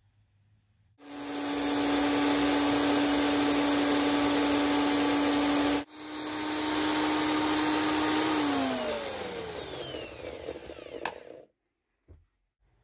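Bench drill press motor running at a steady speed with a spinning brass workpiece in the chuck, breaking off briefly near the middle. About two-thirds of the way through it is switched off and its hum slides down in pitch as it spins down, with a click near the end.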